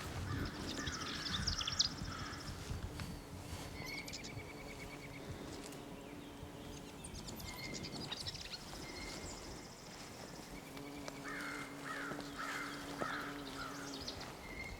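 Woodland birds singing, with a crow cawing in a short run of about four caws near the end.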